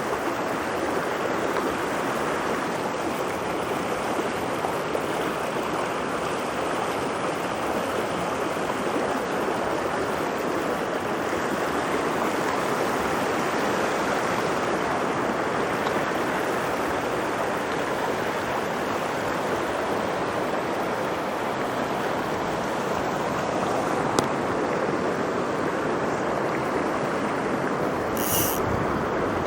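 Mountain trout stream rushing steadily over rocks. A single sharp click sounds about three quarters of the way through.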